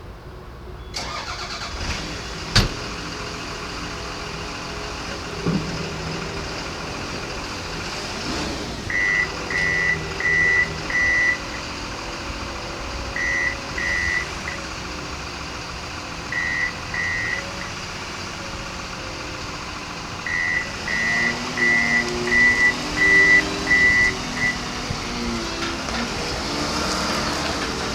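Komatsu WA270 wheel loader's diesel engine starting and then running, its pitch rising and falling as the machine works. The reversing alarm beeps in several short runs, about two beeps a second.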